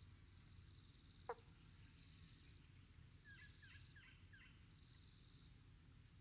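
Faint natural pond-side ambience: a high insect-like trill repeating every second or two, one short falling call about a second in, and four quick chirps around three to four seconds in, over a low rumble.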